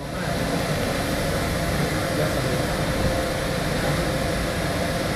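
ÖBB Siemens Taurus electric locomotive standing with its cooling equipment running: a steady hum and rush of air with a faint constant tone.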